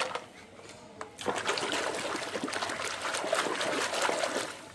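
Water splashing and trickling, a dense crackly patter that starts about a second in. A brief sharp noise sounds at the very start.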